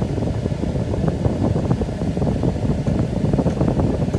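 Truck's engine idling, a steady low rumble.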